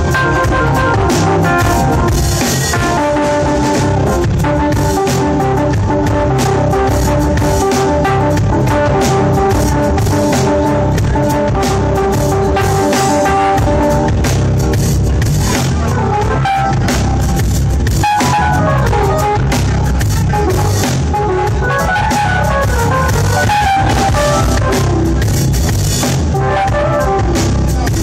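Live band playing: a keyboard with an organ sound over a drum kit and bass guitar, heard from the audience.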